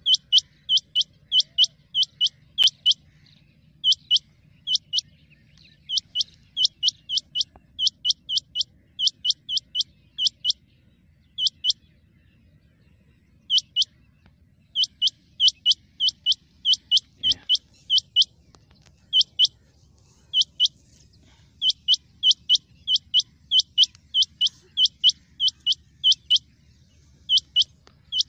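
Rain quail calling: a long run of short, sharp, high notes, often in pairs, about three a second, with a pause of a few seconds a little before the middle.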